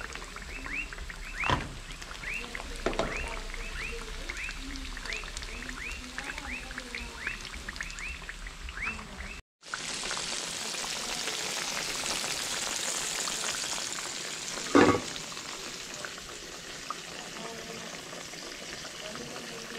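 Battered bangamary fish frying in a pan of hot oil: a steady sizzle, with a loud knock once. Before it, high falling chirps repeat about twice a second, with a couple of knocks.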